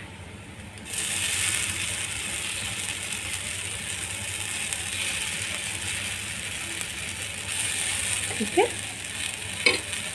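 Semolina (suji) batter sizzling on a hot tawa, a steady hiss that starts abruptly about a second in.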